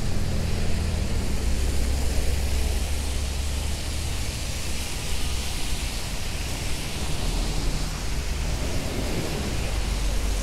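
Rainy city street ambience: a steady low rumble of traffic and a nearby idling engine under an even hiss of rain and tyres on wet pavement.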